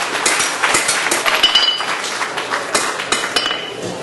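Irregular metal-on-metal clinks and knocks of blacksmith's hammer and tongs on an anvil during tongs forging, with two short ringing strikes.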